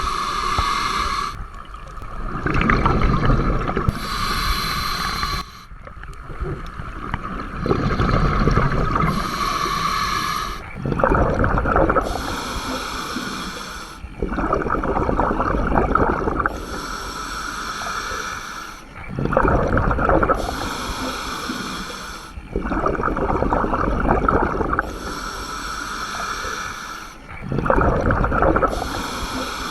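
Scuba diver breathing through a regulator underwater: hissing inhalations through the demand valve alternate with bursts of exhaled bubbles, about one breath every four to five seconds.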